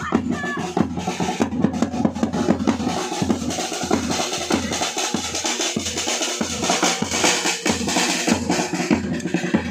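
Live drumming on a large metal-shelled dhol, beaten with a padded mallet on one side and a thin stick on the other, joined by a smaller side drum played with sticks. The drummers keep up a fast, steady rhythm of strikes.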